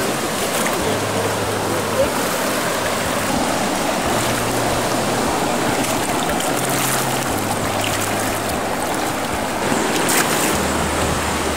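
Steady rush of shallow seawater washing over a coral reef flat, with a few splashes from feet in flip-flops wading through it.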